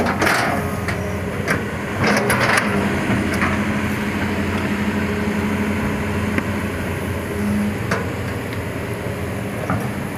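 Hitachi 200-class hydraulic excavator's diesel engine running steadily, with several sharp knocks from the tracks and undercarriage as the machine shifts on its tracks. The strongest knocks come near the start and about two seconds in.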